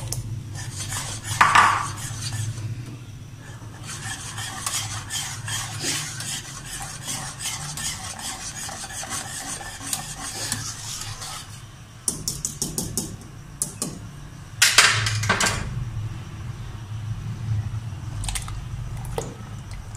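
Wire whisk scraping and rattling quickly around a non-stick pan of hot milk, mixing in milk powder so no lumps remain, with a few louder knocks and scrapes of utensils against the pan, over a low steady hum.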